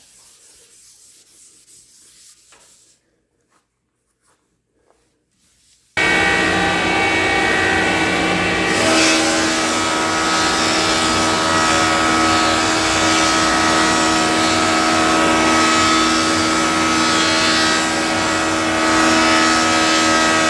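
Faint rubbing of paste wax onto a thickness planer's table, then the planer starts abruptly about six seconds in and runs loud and steady. Its sound grows brighter about three seconds later.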